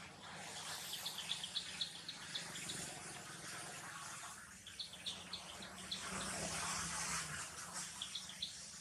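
Outdoor ambience by the water: short high chirps repeated in quick runs of about five, three runs in all, over a steady hiss that swells louder for about a second past the middle.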